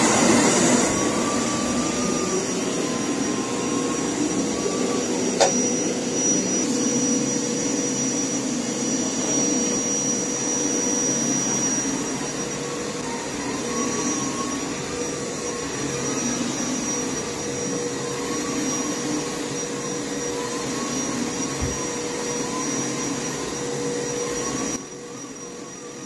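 Hoover Power Scrub carpet cleaner running steadily, with a steady motor whine. There is a single sharp click about five seconds in, and the sound drops sharply in level near the end.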